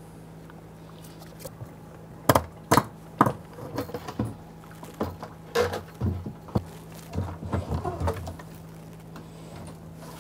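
Plastic fuel pump module and its hoses knocking and clicking against the fuel tank opening as gloved hands lower it in and work inside the tank. Three sharp knocks come about two to three seconds in, then a run of smaller clicks and taps from about five to eight seconds.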